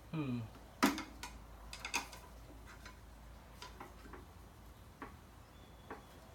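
Scattered light clicks and taps of metal parts being handled while the brake pads are worked out of a motorcycle brake caliper, the loudest just under a second in and about two seconds in.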